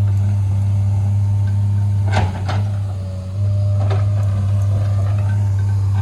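A heavy machine's diesel engine running steadily with a deep, even hum. A few short knocks come about two seconds in and again near four seconds.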